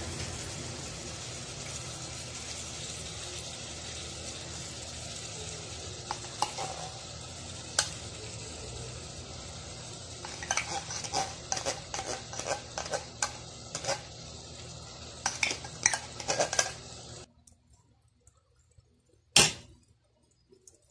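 Metal spoon scraping corned beef from its tin can into a rice cooker's metal inner pot: a few separate clinks, then a quick run of clinks and scrapes, over a steady hiss that cuts off abruptly. A single sharp knock comes near the end.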